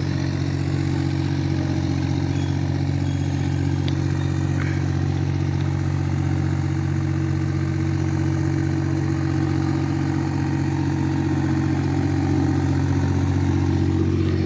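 Small backhoe's engine running steadily at an even pitch, a little louder near the end.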